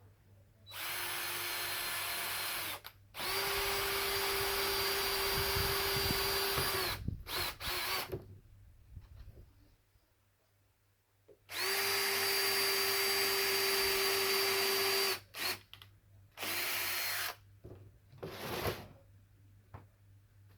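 Power drill pre-drilling pilot holes through a saw-track rail into a melamine baseboard. The motor runs at a steady pitch in two long runs of a few seconds each, with several short trigger pulls between and after them, and a single knock near the end.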